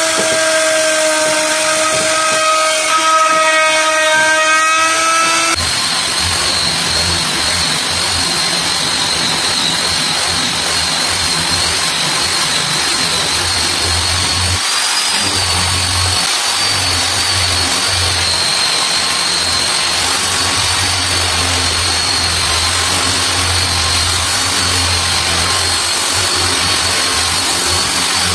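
An electric handheld router winds up to speed and runs with a steady whine for about five and a half seconds, then stops abruptly. After that an angle grinder with a foam sanding pad runs steadily, a high whine over a low rumble, as it sands the oak door's surface.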